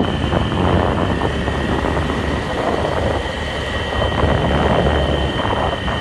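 Steady wind rumble on the microphone mixed with the running noise of a vehicle moving along a road, with two thin steady high tones running through it.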